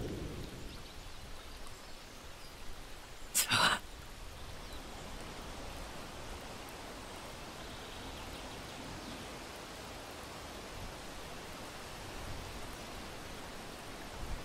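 A loud sound dies away at the start, then a steady, soft hiss of background ambience carries on, broken once by a short, sharp sound about three and a half seconds in.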